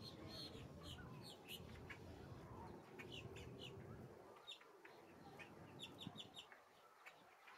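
Faint calls of a flock of great white pelicans: short, high squawks in quick runs, over a low rumble that drops away about four seconds in.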